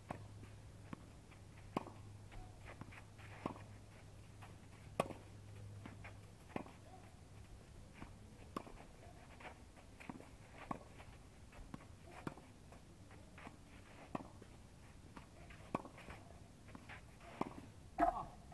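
Tennis rally on a clay court: faint sharp pocks of the ball off the rackets and court, one every half second to second and a half, with a louder knock near the end. A low hum runs under the first few seconds.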